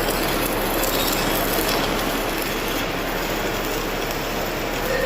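Stick-welding (shielded metal arc) arc crackling and sizzling steadily, with a constant low hum underneath.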